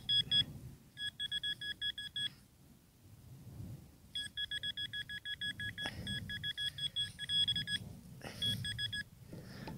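Metal detector giving a rapid run of short, high electronic beeps in several bursts, the signal of a metal target in the hole being dug. Soft low rustling sits underneath.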